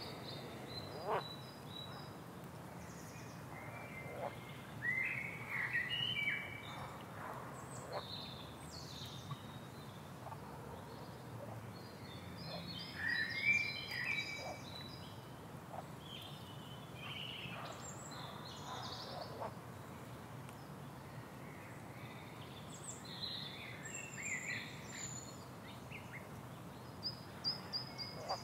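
Outdoor ambience of frogs and birds: scattered bird chirps and calls over a steady background hiss, with occasional short frog calls. The calls cluster most densely about halfway through.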